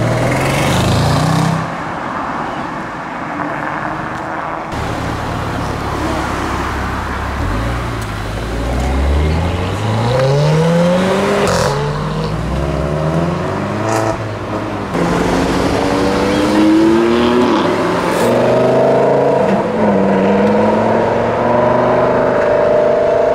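Performance car engines revving hard as the cars pull away one after another, each rising in pitch through the gears. An Audi RS6 Avant is at the start and a Lamborghini Gallardo's V10 near the end.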